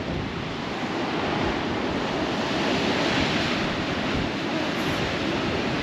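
Ocean waves surging and washing against coastal rocks, swelling to a peak about three seconds in, with wind buffeting the microphone.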